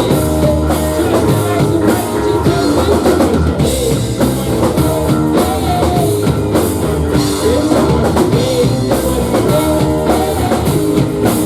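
Live rock band playing loudly: a driving drum kit with guitars and bass.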